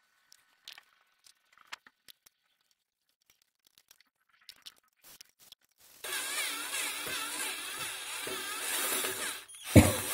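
Light tool clicks, then about three and a half seconds in, a motorcycle engine is run briefly to test the oil flow and cuts off abruptly. A loud metallic clank follows near the end.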